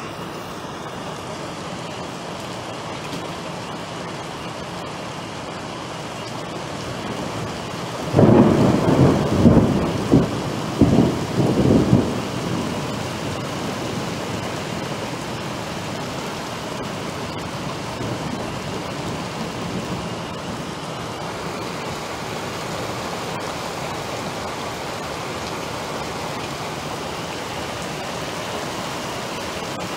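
Heavy rain pouring steadily. About eight seconds in, a loud peal of thunder starts suddenly and rumbles in several surges for about four seconds before dying back into the rain.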